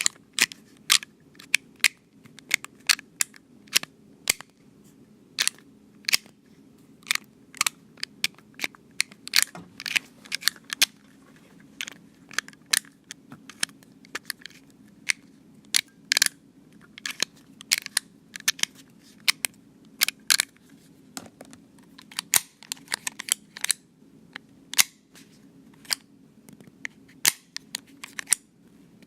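Retractable utility knife clicking as its blade slider is pushed out and pulled back: many sharp, irregular clicks, some single and some in quick runs of several.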